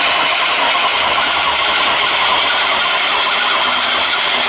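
Railway turntable's motorised drive carriage running as the turntable slowly turns with a steam locomotive on it: a low motor hum comes in about a second in and fades near the end, over a steady hiss.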